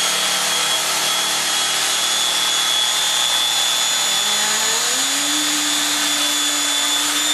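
Electric knife running steadily with a high, even whine as its blades saw through thick upholstery foam.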